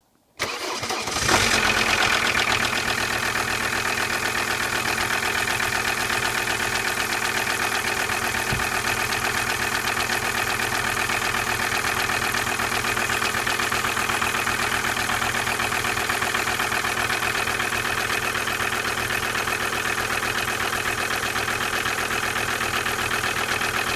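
Volvo V70 2.5 TDI five-cylinder turbodiesel cold-started with its accessory belt removed: a brief crank, the engine catches about a second in, then idles steadily. It is the 'strange sound' of an engine that shakes, runs poorly and smokes heavily, which the owner fears needs replacing.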